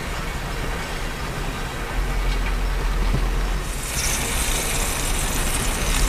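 Cabbage rolls being laid into hot oil in a cast-iron pan, with the oil sizzling. The sizzle turns into a louder, brighter hiss about four seconds in as more rolls go into the pan. A steady low rumble runs underneath.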